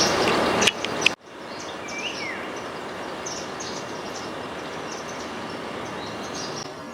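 Munias chirping: many short, high, thin chirps over a steady background hiss, with one slurred downward note about two seconds in. Before that, a louder rushing noise with a couple of sharp clicks stops abruptly about a second in.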